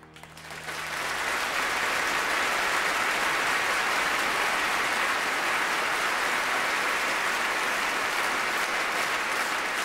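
Audience applauding, starting as the last low note of the music fades and swelling within about a second into steady, dense applause.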